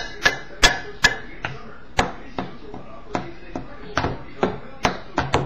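Spoon tapping repeatedly on a metal muffin tin, two or three sharp taps a second, the first few the loudest.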